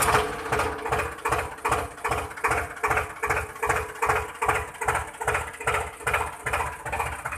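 Tractor engine chugging in a steady, even rhythm of about two beats a second over a steady hum.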